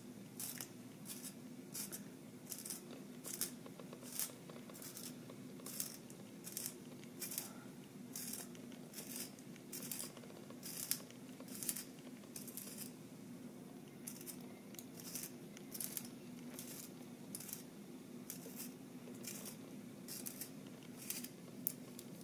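Pencil being turned in a German-made brass hand-held sharpener, the blade shaving off the wood in a quick, even series of short scraping strokes, nearly two a second.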